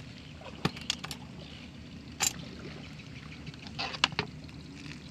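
Steady low hum of an idling boat engine, with a few sharp clicks and knocks and a brief hiss over it.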